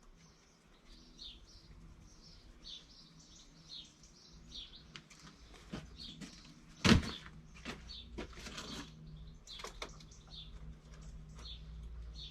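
Small birds chirping in short high notes, repeated every second or so. About seven seconds in there is one sharp, loud knock, and a faint low hum runs from then on.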